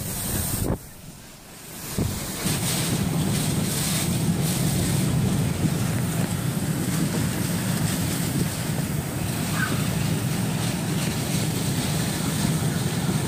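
Category 1 hurricane wind with driving rain, gusting hard. It eases briefly about a second in, then comes back strong and steady.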